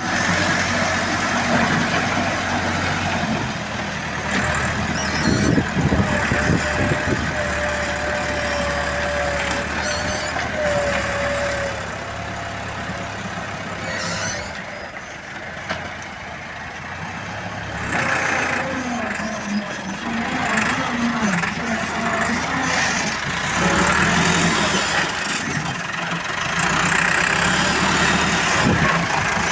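Heavy construction machinery engine running at a construction site, with a whining tone that wavers in pitch about five to eleven seconds in.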